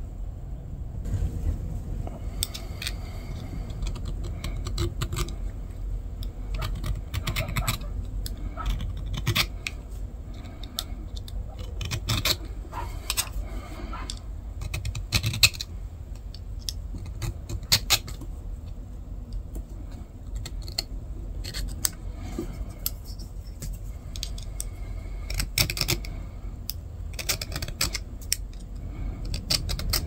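A small hand file scraping short, irregular strokes across the bare metal frame of a slipjoint knife, with scratchy clicks as it cuts grooves to roughen the surface for epoxy. A steady low hum runs underneath.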